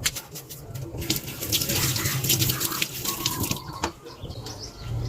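Kitchen tap running with water splashing into the sink for about two and a half seconds, starting about a second in, with a click near the start and another after it stops.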